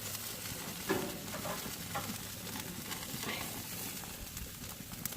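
Pork belly sizzling on a barbecue grill: a steady crackling hiss of fat cooking and dripping into the fire.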